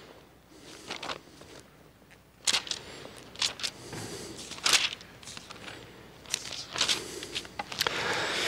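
Thin Bible pages being leafed through: a series of short, irregular paper rustles and flicks.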